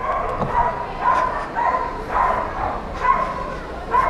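A dog barking repeatedly in short, evenly spaced yaps, about two a second.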